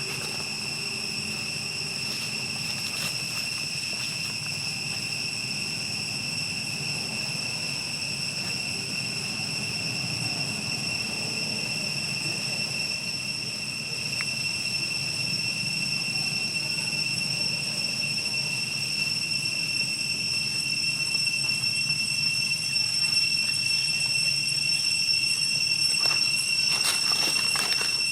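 Insects trilling in a steady high-pitched drone over a low rumble, getting a little louder toward the end, with a few faint clicks near the end.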